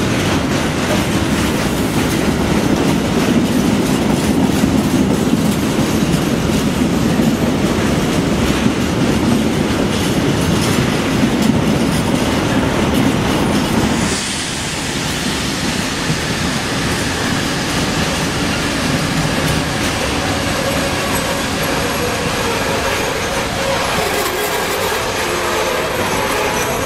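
Train running past on the track, a loud steady rumble of wheels on rails. About halfway through the sound changes suddenly to a quieter running, with thin high squealing tones from the wheels in the second half.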